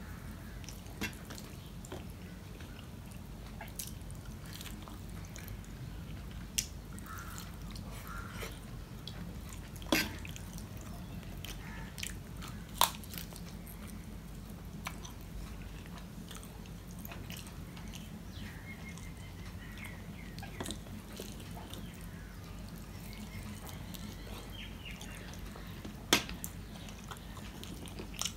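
A person eating rice and curry by hand: wet chewing and mouth sounds, with scattered sharp clicks and smacks a few seconds apart over a steady low hum.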